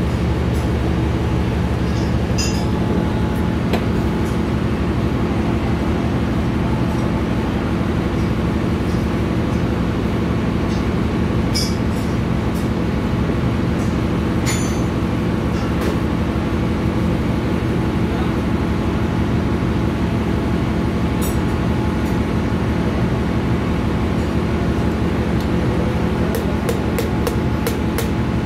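Steady, loud drone of engine-room machinery, a deep hum with several steady tones in it. Over it, scattered metal clinks and taps of parts and tools as the lubricator unit in the vise is worked on by hand, a quick run of them near the end.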